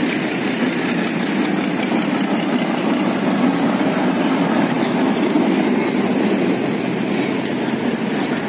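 Metre-gauge diesel locomotive passing close by with its engine running, followed by its passenger coaches rolling past. The sound is loud and steady.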